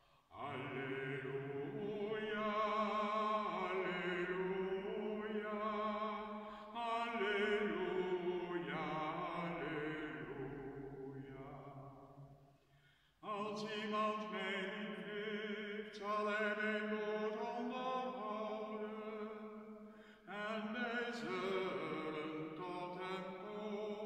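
One man's voice chanting unaccompanied, the Alleluia verse sung as the gospel acclamation of the Mass, in three long phrases with short breaks about halfway through and near the end.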